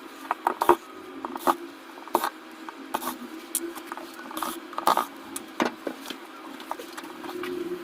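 Starion commercial refrigerator's fan motor running with a steady hum and irregular clicking and rattling: the fan motor noise of a faulty motor.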